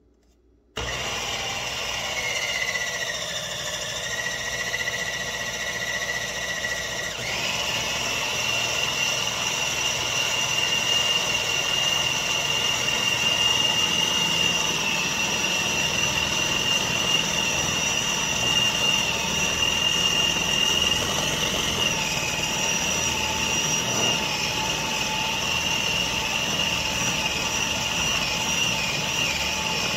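Electric food processor motor switched on under a second in and running steadily, mixing vital wheat gluten into a wet lentil and tomato-paste purée to form seitan dough. A steady whine whose pitch steps slightly a couple of times.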